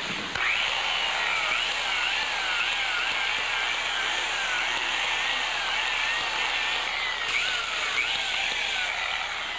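Electric grinder with a sandpaper disc spinning up and sanding the fiberglass of a surfboard to rough up a buckled area. Its steady whine wavers up and down as the disc works the surface.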